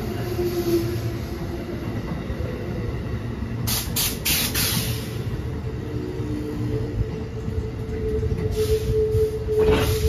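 Amtrak Amfleet passenger coaches rolling slowly past and slowing to a stop, with a continuous low rumble of wheels on rail. A steady high squealing tone comes in about six seconds in and grows louder near the end. Short bursts of hiss come about four seconds in and again near the end.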